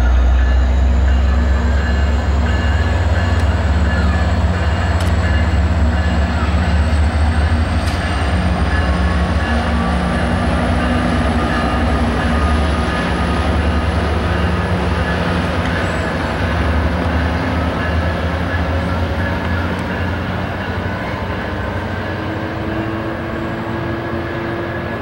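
Metrolink diesel locomotive pulling a commuter train away from the station: a deep, steady engine drone with a faint high whine that rises slowly in pitch. It grows gradually quieter over the last few seconds as the train moves off.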